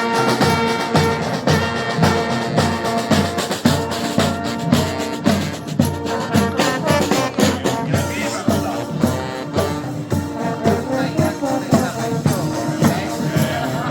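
Music with a steady drum beat, played loud.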